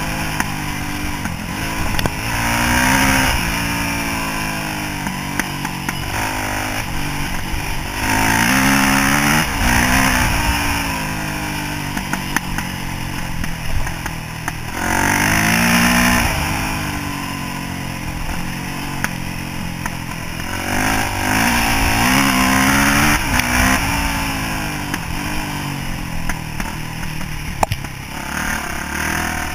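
Yamaha YZ426F dirt bike's four-stroke single-cylinder engine, heard from the rider's chest, revving up hard and backing off over and over as it pulls through the gears, with wind rushing over the microphone.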